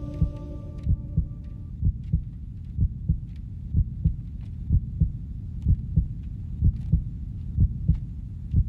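Heartbeat sound effect: a steady low double thump (lub-dub) a little under once a second. A held musical chord fades out in the first two seconds.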